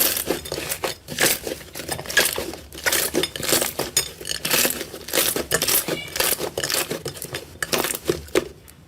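Slime being squeezed and pressed, a dense, irregular run of sticky crackles, clicks and pops that thins out near the end.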